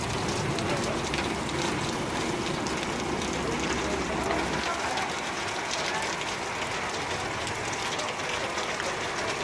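Heavy rain falling and pattering on surfaces, a steady hiss. A low rumble underneath stops about halfway through.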